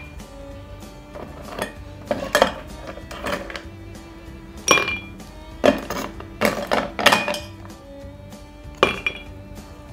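Metal ice tongs and small ice cubes clinking against a stainless steel ice bucket and a whisky glass as the ice is lifted out and dropped in. There is an irregular string of sharp clinks, a few ringing briefly, with clusters about two seconds in, around five seconds in, between six and seven seconds in, and near nine seconds in. Soft background music plays underneath.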